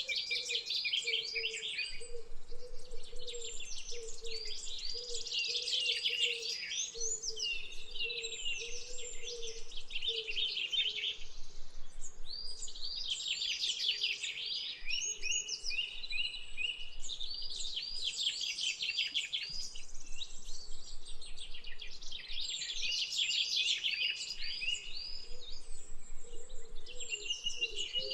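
Jungle ambience: many birds singing and chirping at once in a dense, continuous chorus. A lower repeated call runs beneath it through the first half and returns near the end.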